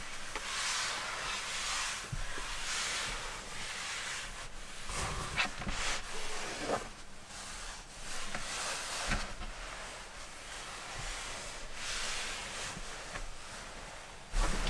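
A wooden tabletop being wiped by hand: repeated rubbing strokes about once a second, with a few knocks along the way.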